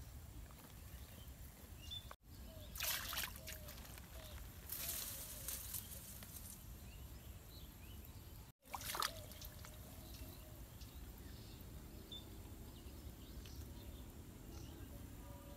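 Faint outdoor ambience with a low steady rumble, broken by brief bursts of water splashing from a small pond about three seconds and five seconds in; the sound drops out for an instant twice.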